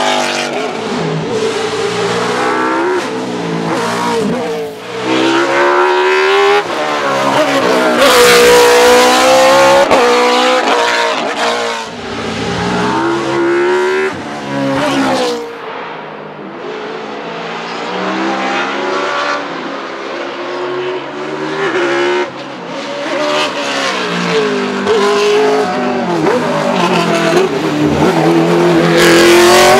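Judd 3.5-litre 90-degree V8 Formula 1 engine in the Mercedes-Benz 190 RM 1 hillclimb car, revving hard and repeatedly climbing in pitch, then dropping back at each gearshift or lift, as the car accelerates past.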